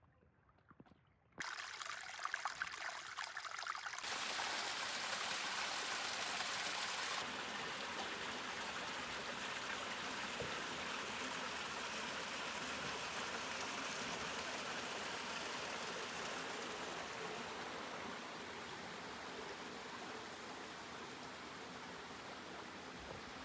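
Hot-spring stream water running over rocks. It sets in suddenly about a second and a half in, is loudest and hissiest for a few seconds after that, then runs on steadily and slowly grows fainter.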